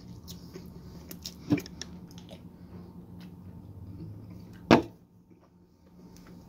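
A few soft ticks and a knock over a low steady hum, then one sharp clunk about three-quarters of the way through, as a drink can is put down on a table.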